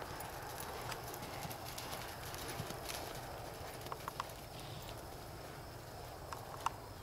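Dun mare's hoofbeats as she walks under a rider on arena dirt, over a steady background hiss, with a few sharp clicks just before the middle and near the end.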